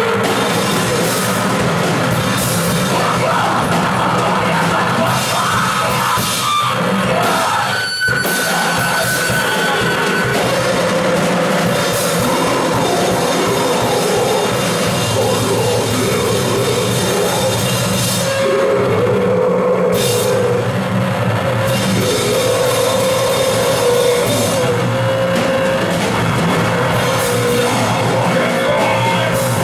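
A rock band playing loud, heavy music live: a drum kit with cymbals pounding under a dense wall of amplified instruments, with long held notes that move to new pitches in the second half.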